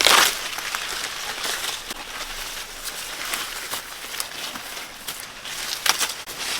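Corn plants rustling and crackling as they are handled, with a sharp snap right at the start and another about six seconds in, typical of ears or stalks being broken off.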